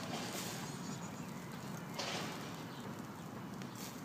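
Small campfire burning with faint crackles, and two short rustling noises, one at the start and another about two seconds in.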